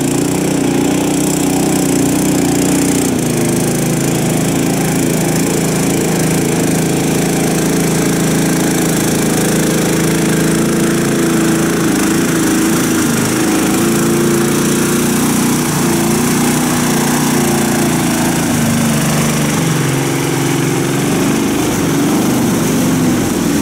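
Karakat all-terrain vehicle's engine running steadily at close range, with slight wavers in its pitch.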